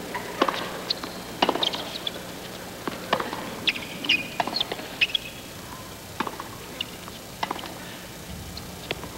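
Tennis rally on a hard court: racquets striking the ball and the ball bouncing, a series of sharp pops roughly every half second to a second, with short high squeaks from the players' shoes.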